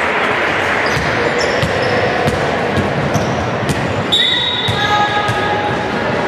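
A basketball bouncing on a wooden court in a large, echoing sports hall, against a steady background of voices. A brief high squeak comes about four seconds in.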